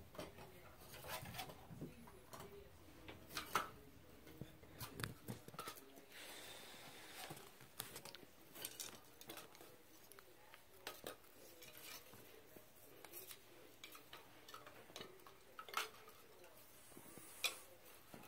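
Scattered light clicks and small rattles of dry twigs and cardboard tubes being moved about in a pet bed where a rabbit is nosing among them, with brief rustling. The sharpest clicks come about three and a half seconds in and again near the end.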